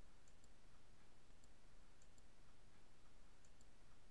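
Near silence: a faint steady hiss with a few faint, very short high clicks, several in pairs.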